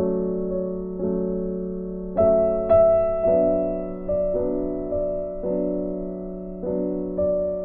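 Background piano music: slow, gentle chords, a new one struck about every second and fading away.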